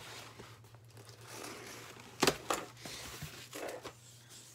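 Cardboard shipping box being opened by hand: rustling and scraping of the cardboard flaps and packing, with two sharp cracks a little over two seconds in.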